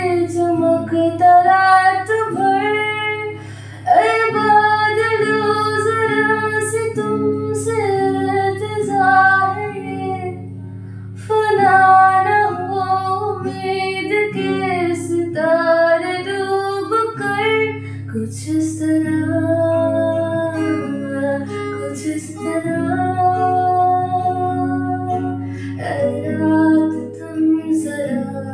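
A woman singing a Hindi song in long held phrases, accompanied by a plucked acoustic guitar.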